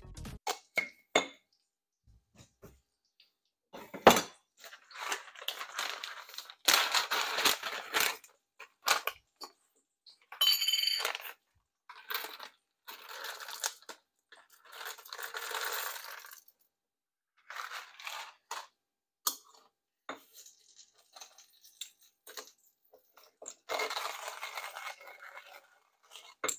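Kitchen handling sounds: scattered knocks and clinks of utensils and dishes, with several short stretches of scraping or rustling noise a second or two long. About ten seconds in, a brief metallic ring is heard.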